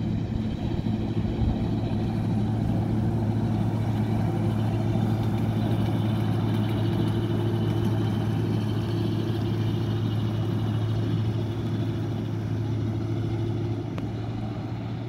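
Steady low engine hum from a 7½-inch gauge ride-on miniature diesel-outline locomotive running at a constant speed, easing slightly near the end.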